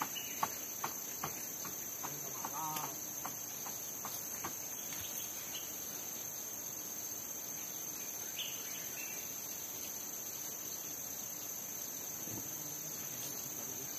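Steady, high-pitched chorus of tropical forest insects, like crickets or cicadas, droning without a break. A few sharp clicks or knocks come in the first few seconds.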